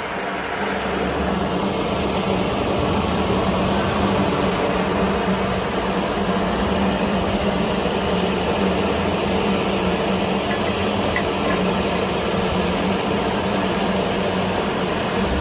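Shielded metal arc (stick) welding arc burning steadily on a 7018 electrode, an even frying hiss with a low hum under it, that stops right at the end as the arc is broken.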